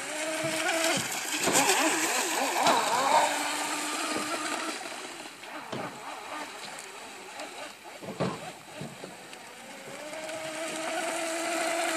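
Small electric RC speedboat's motor whining steadily as the boat runs at speed across the water. The whine fades as the boat moves off about halfway through, then grows louder and rises slightly in pitch near the end as it comes back.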